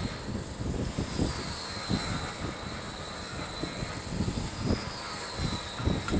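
Engine of a track work machine running steadily, with a faint high whine over an uneven low rumble.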